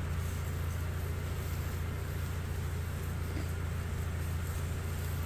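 Skid steer's engine running steadily at a constant speed, a low even hum with no changes.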